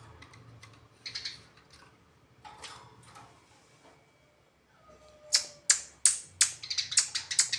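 Sparrows chirping during a fight: a few soft chirps, then from about five seconds in a fast run of loud, sharp chirps, about three a second.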